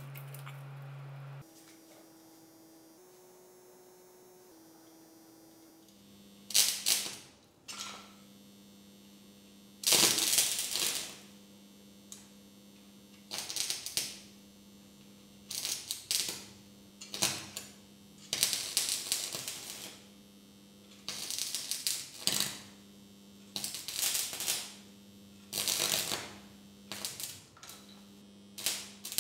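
Arc welding with a homemade welder built from stacked UPS transformers: the rod strikes an arc on steel in about a dozen short crackling bursts, the first about six seconds in, each under about a second and a half long. A steady transformer hum runs underneath.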